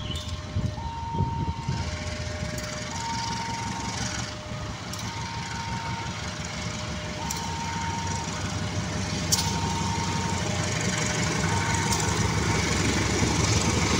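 A KAI GE CC201 diesel-electric locomotive running as it hauls a passenger train slowly toward the listener, its engine hum growing steadily louder, with a few sharp clacks. Throughout, a two-tone warning alarm alternates between a high and a low tone about once a second.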